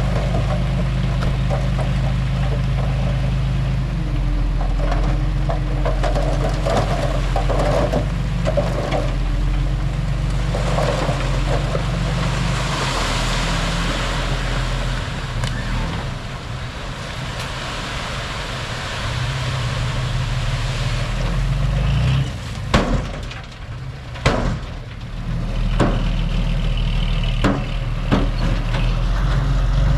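Heavy diesel earthmoving machinery running steadily under load, with a few sharp metallic knocks about three-quarters of the way through.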